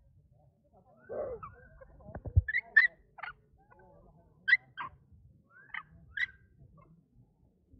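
Macaques giving short, high-pitched squeaks, about eight in a few seconds, with a dull thump about two seconds in.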